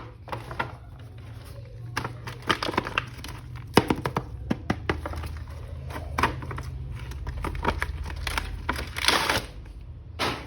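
Toy packaging being handled and opened: scattered sharp plastic clicks and crinkling, with a longer rustle near the end, over a faint low hum.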